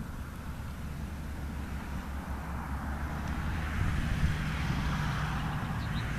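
Nordex N90 wind turbine running, its rotor blades whooshing as they sweep round. The whoosh swells in the second half over a steady low rumble.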